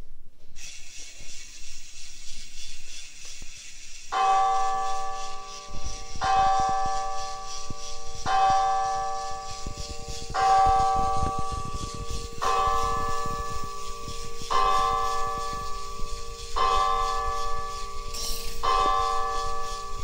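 A recorded church bell tolling through a small speaker, one stroke about every two seconds, eight strokes starting about four seconds in, each ringing on until the next. From about six seconds in, a low clatter from the LEGO micro motor and linkage rocking the model bells runs underneath.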